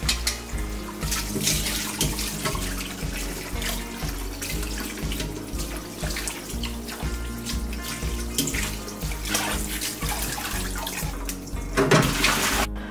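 Tap water running into a bowl of freshly blanched spinach to cool it down, a steady rush with a louder splash shortly before it cuts off suddenly near the end. Background music with a steady beat plays underneath.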